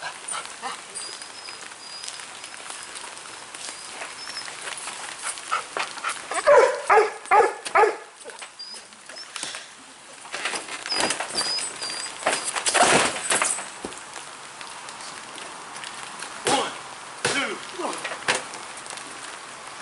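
A dog barking several times in quick succession, with loud thuds of bodies landing on a wet tarp-covered wrestling mat, over a steady hiss of rain.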